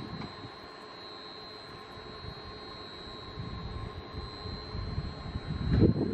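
Electric multiple-unit passenger train running past, a steady low rumble that builds to its loudest near the end.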